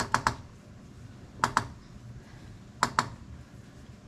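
Sharp metallic clicks in three quick groups of two or three, about a second and a half apart, as the Morris radial drill press head is cranked along its arm: remains of a burned-out bearing catching as it moves, which the owner takes for the bearing shell clicking on the rack.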